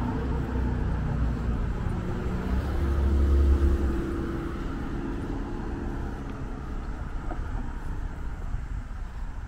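Road traffic: a car drives past on the adjacent street, its engine and tyre noise rising to a peak about three to four seconds in, then fading into a steady background rumble of distant traffic.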